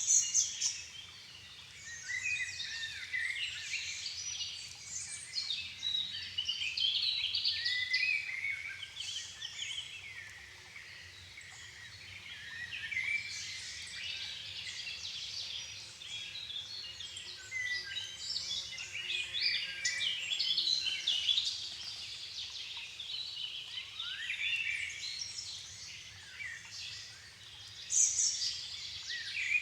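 Dusk chorus of many songbirds singing over one another, a dense tangle of quick whistled and chirping phrases, with a louder burst of song near the end.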